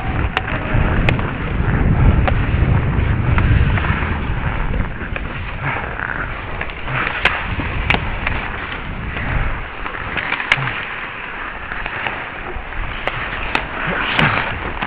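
Ice hockey play heard from a skater's helmet camera: skate blades scraping the ice under a steady rush of noise, heavier and lower in the first few seconds, with a dozen or so sharp clacks of sticks and puck scattered through it.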